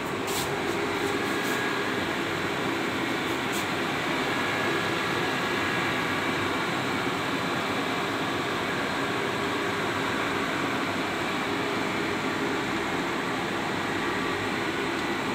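Steady whir of cooling fans and air conditioning in an electronic equipment room, a constant hum with a few faint steady tones, unchanging throughout. A few light clicks sound in the first few seconds.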